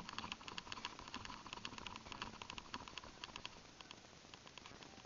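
A fast run of light clicks and rattles from a running player's gear and footsteps, easing off after about three and a half seconds.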